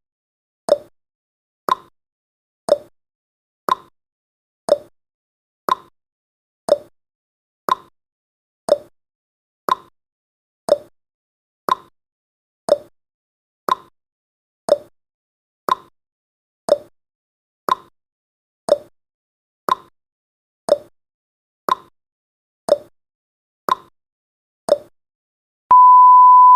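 Countdown timer's tick sound effect, one short tick each second. Near the end the ticking stops and a steady electronic beep tone starts, marking the countdown reaching zero.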